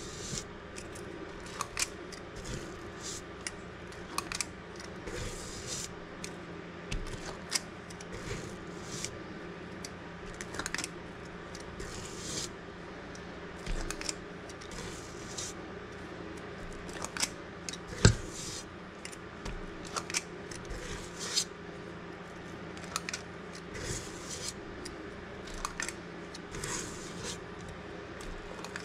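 Stainless steel spring-loaded cookie scoop scraping dough from a stainless steel mixing bowl, its squeeze-release lever clicking as each scoop is dropped. The clicks and scrapes come irregularly, the sharpest knock a little past halfway.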